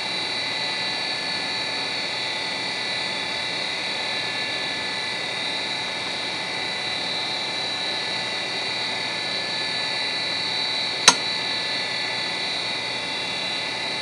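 Conner Peripherals CFS425A 3.5-inch IDE hard drive idling, its single platter spinning at 3600 rpm with a steady high-pitched whine and hiss. One sharp click about eleven seconds in.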